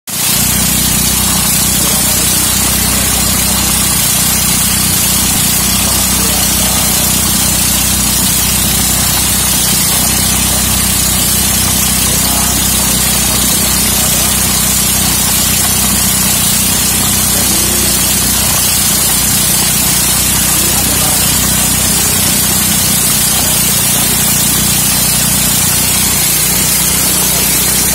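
Engine-driven corn sheller running steadily under load as cobs are fed in: a loud, unbroken low engine hum beneath a steady high hiss.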